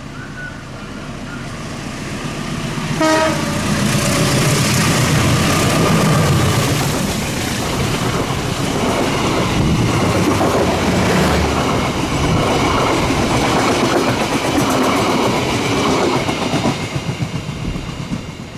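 Diesel train passing close by: it builds up, gives a short horn blast about three seconds in, then its wheels clatter and rumble loudly over the rails for over a dozen seconds before fading near the end.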